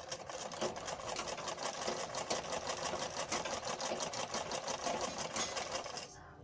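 Black domestic sewing machine stitching a seam that joins two pieces of cloth: a fast, even run of needle strokes that starts at once and stops about six seconds in.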